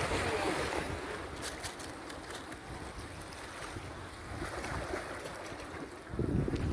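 Wind buffeting the microphone over a steady wash of sea water, with a stronger gust about six seconds in.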